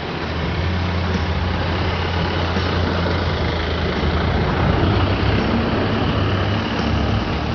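Diesel engine of a JCB backhoe loader running steadily at work, a loud continuous low hum with mechanical noise over it.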